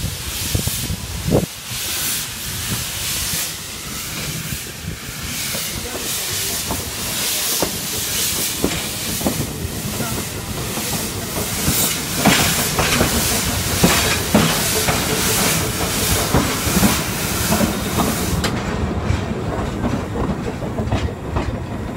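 Narrow-gauge steam train moving slowly, heard from inside a coach: a rumble and clatter of wheels on the rails, with the locomotive's chuffing repeating regularly and a few sharp clanks a little past halfway.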